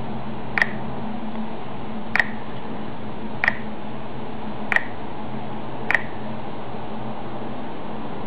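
Five short, sharp clicks, one to one and a half seconds apart: touch-feedback clicks from a Samsung Omnia II touchscreen as a finger taps through its menus. Under them runs a steady hiss and low hum.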